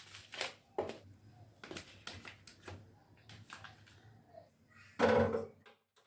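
A series of light clicks and knocks, with a louder half-second burst of noise about five seconds in.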